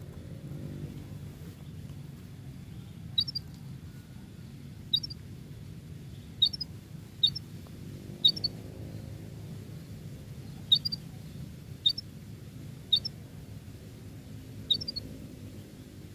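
Domestic canary giving short, sharp single chirps, about nine of them spaced one to two seconds apart, over a steady low hum.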